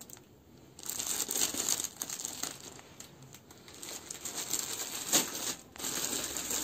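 Clear plastic garment bags crinkling in irregular crackles as packaged abayas are handled and set down on a stack, starting about a second in.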